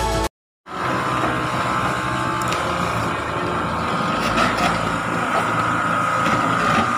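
Music cuts off sharply, then steady outdoor background noise with a high-pitched hum running through it and a low rumble underneath.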